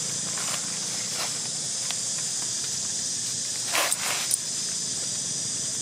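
A steady, high-pitched insect drone over a low steady hum. Two short scuffs, like feet on dry leaf litter, come just under four seconds in and are the loudest sounds.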